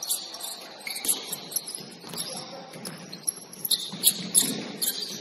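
Basketball shoes squeaking on a gym floor: many short, sharp, high-pitched squeaks at irregular moments, thickest from about three and a half to four and a half seconds in.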